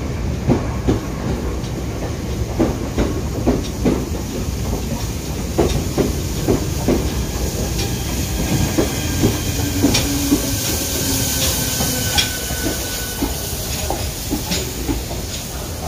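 Steam-hauled train of coaches rolling slowly past, wheels clicking irregularly over rail joints above a steady low rumble. A hiss and faint whining tones come in around the middle, as the steam locomotive passes.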